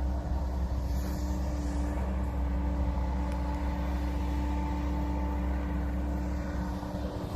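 Hydraulic excavator's diesel engine running steadily with a deep hum.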